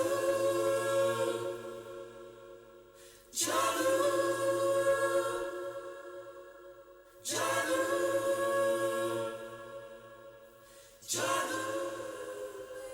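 Background music of sustained choir-like vocal chords. A new chord comes in about every four seconds and fades away, four times.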